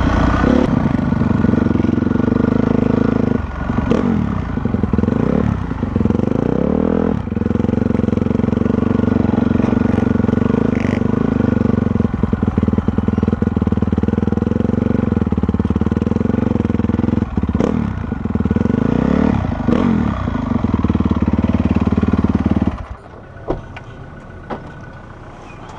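Honda CRF450R single-cylinder four-stroke motocross engine running hard under load, its revs dipping and climbing again several times. Near the end the engine sound drops off sharply to a much quieter level.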